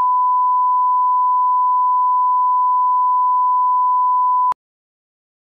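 Line-up test tone played with colour bars: a single steady pure pitch at an even level that cuts off suddenly about four and a half seconds in.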